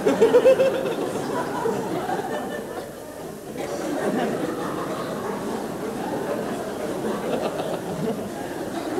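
Laughter: a loud choppy burst of laughing at the start, then a theatre audience laughing and chattering, which dips briefly a few seconds in and picks up again.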